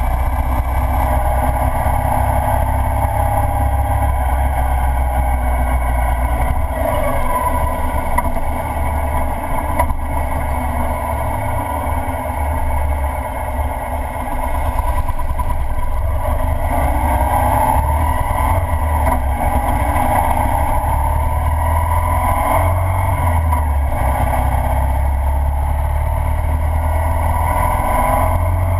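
Ural sidecar motorcycle's flat-twin engine running at road speed, a steady low drone that shifts up and down in pitch a few times with the throttle, dipping briefly in loudness about halfway through.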